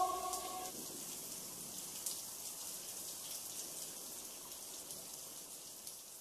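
Steady rain ambience, a soft hiss with faint pattering, slowly fading out toward the end. In the first second the tail of a wolf howl dies away.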